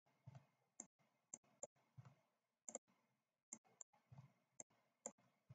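Faint, irregular clicking of a computer mouse and keyboard, about a dozen clicks, some in quick pairs, with a few soft low knocks among them.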